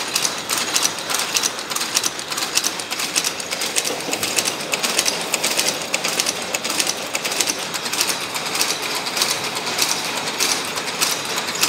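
Safety-pin making machines running with a fast, steady metallic clatter of many rapid strokes.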